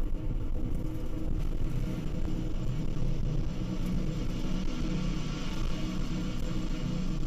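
Falcon 9 first-stage engines running during ascent: a steady, dense low rumble.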